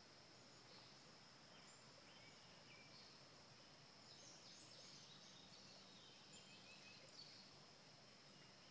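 Near silence: faint outdoor ambience, a steady thin high-pitched tone with scattered faint chirps of distant birds.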